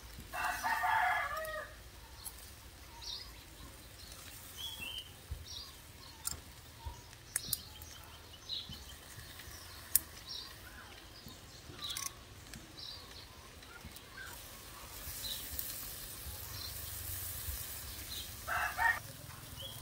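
A rooster crowing once, loud, for just over a second about half a second in, with a shorter call near the end. Faint chirps of small birds and a few sharp clicks come in between.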